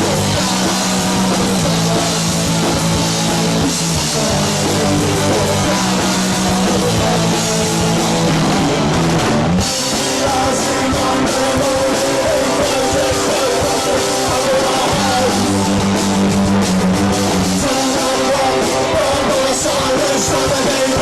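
Live punk rock band playing: two electric guitars, bass guitar and drum kit.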